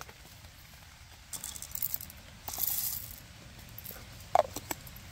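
Whole coffee beans rattling in a hand grinder's metal bean cup as it is handled, in two short bursts. This is followed near the end by a sharp click and a few lighter clicks as the grinder's parts knock together.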